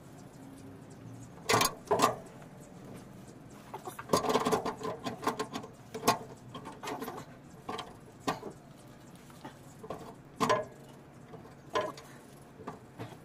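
Scattered sharp metallic clicks and short clatters, with a busier spell of rattling about four to five seconds in, from hands working the handbrake drum and universal joint on a vehicle's driveshaft.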